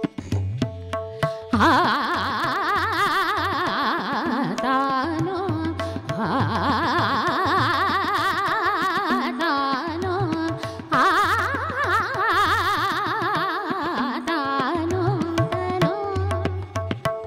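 A woman sings fast, ornamented runs in a Hindustani classical vocal piece, accompanied by tabla. The tabla plays alone for the first second and a half before the voice comes in.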